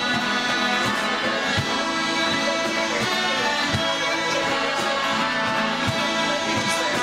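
Several Scottish smallpipes played together, a melody on the chanters over steady droning tones, with a soft low thump about twice a second keeping time.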